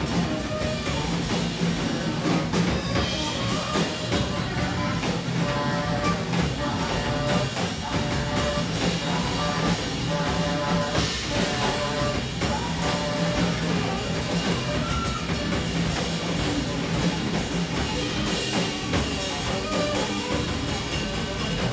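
Live free jazz quartet of alto saxophone, drum kit, electric bass and double bass improvising together. The drumming is dense and busy throughout, with saxophone lines over a steady low bass.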